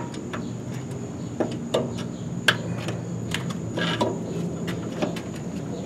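A few scattered light clicks and knocks of metal parts being handled as a front shock absorber is fed up through the coil spring, over a steady low hum.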